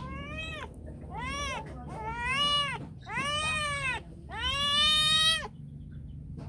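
Domestic cat meowing five times in quick succession, each call rising and falling in pitch, the last one longest and loudest: a cat asking to be played with.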